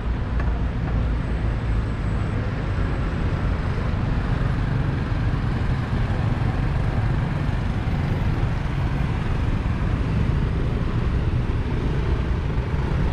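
Steady city road traffic noise: cars and motor scooters passing, with a continuous low rumble.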